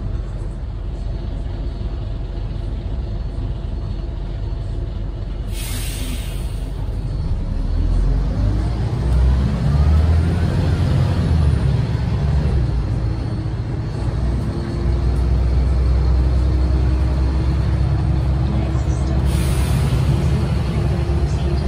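Renault PR100.3 bus's turbocharged 9.8-litre six-cylinder diesel running steadily, then a short sharp air hiss about five seconds in as the brakes release, and the engine revs climb as the bus pulls away, with a brief dip about two-thirds in as the ZF automatic gearbox changes up. Another short air hiss near the end.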